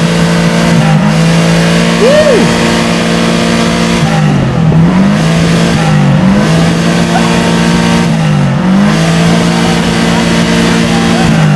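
Old Toyota Corolla engine held at high, steady revs, its pitch dropping briefly and climbing back up about three times.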